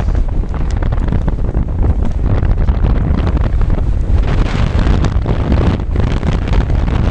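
Strong mountain wind buffeting the camera microphone, a loud continuous rumble with gusts; a stronger gust swells near the end.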